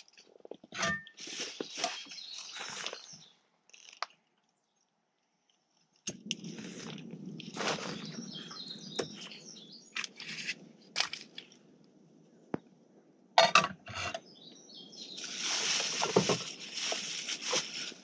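Crinkling and rustling of a plastic bag as small camping gear is handled, broken by sharp clicks and knocks. The sound cuts out completely for about two seconds, four seconds in.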